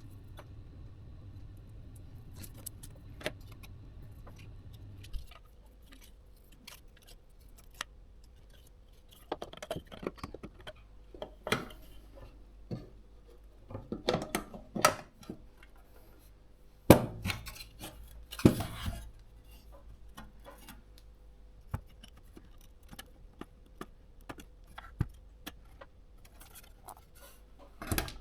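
Small hard tools and parts clicking and clattering as they are handled on a workbench, with a few sharper knocks in the middle. A steady low hum runs underneath at first and stops about five seconds in.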